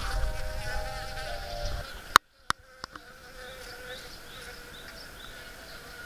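Western honeybees buzzing as they fly around an exterior kitchen exhaust vent cap, in steady held tones. About two seconds in, a low rumble stops with a sharp click and two fainter clicks, and the buzzing carries on more faintly.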